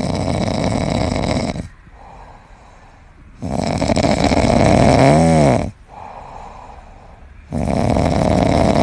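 A sleeping cat snoring: three long, loud snores about four seconds apart with quieter breaths between, the middle one carrying a brief pitched rise and fall.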